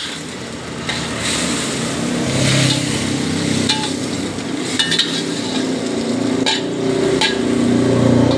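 Chicken in chilli sauce sizzling in a steel wok while a metal spatula stirs it, scraping and knocking against the pan several times. A low steady drone runs underneath.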